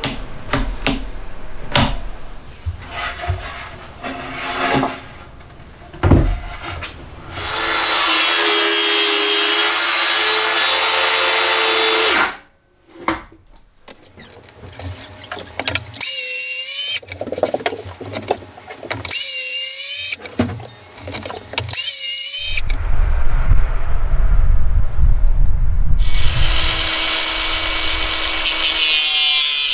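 Power drill running several times amid knocks and tool handling: one steady run of about four seconds, then three short bursts whose pitch sags and recovers as the drill takes load. Near the end a rougher, hissing power-tool sound takes over.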